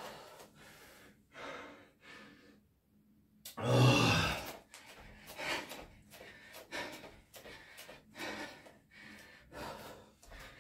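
A man breathing hard from exertion, with short, regular breaths about once a second. About three and a half seconds in, after a brief held breath, comes a loud voiced gasp.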